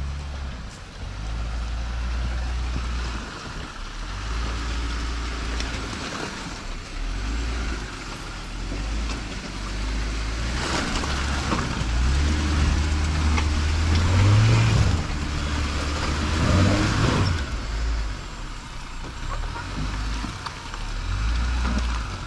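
Jeep Gladiator's engine running at low revs as it crawls through deep mud ruts, with its pitch stepping up and down. It gets louder in the middle with tyre and mud noise, and revs up briefly a little past the middle.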